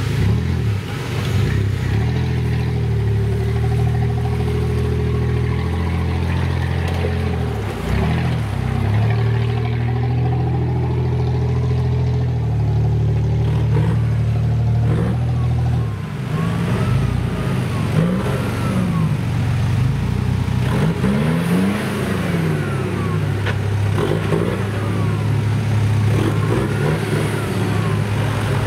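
Off-road 4x4 engines labouring in low gear up a rutted dirt climb, running at a held pitch that shifts up and down in steps over the first half. From about halfway the engine revs up and falls back again and again, roughly every couple of seconds.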